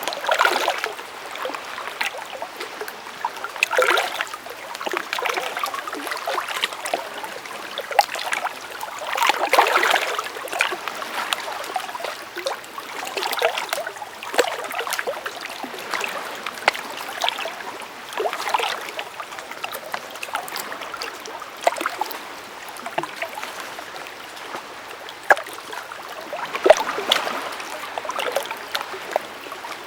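Small stream of running water babbling over stones: a steady rush with many irregular little splashes and gurgles, swelling louder every few seconds.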